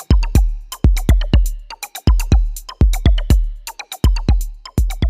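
Electronic music: a drum-machine beat of deep, booming kick drums and sharp percussion hits in a quick steady rhythm.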